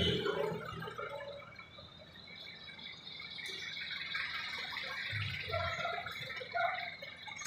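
Street traffic: a passing jeepney's engine rumble fades away at the start, and another vehicle's engine rumbles by about five seconds in.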